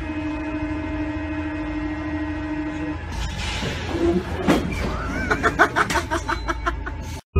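Paris Métro train's door-closing warning buzzer sounding steadily for about three seconds over the carriage's hum, then a hiss as the doors shut, followed by a man laughing in short bursts.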